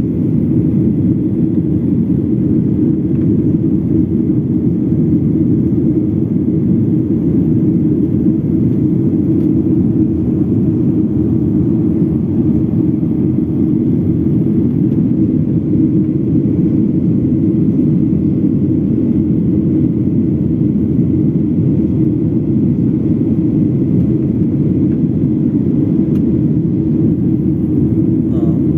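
Steady, loud rumble of an aircraft in flight heard from inside the cabin, unchanging throughout.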